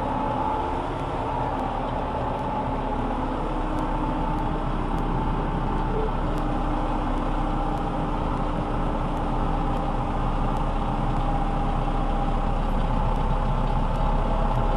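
Combine harvester running steadily while cutting soybeans: an even machine drone with a higher steady whine over it.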